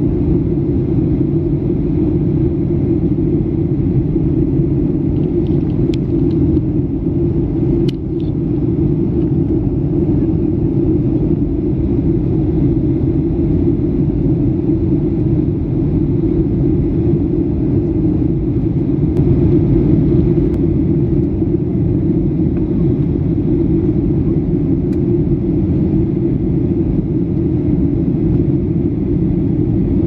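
Steady cabin noise inside a Boeing 737-800 in flight: a constant low rumble of engine and rushing airflow heard from a window seat. A couple of faint clicks come about six and eight seconds in.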